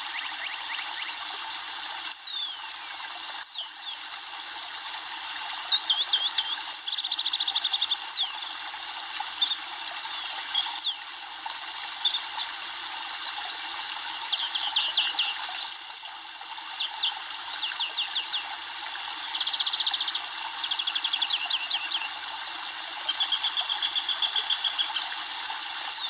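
Shallow stream flowing and trickling over stones and around branches, a steady rushing hiss, with small birds chirping and trilling on and off throughout.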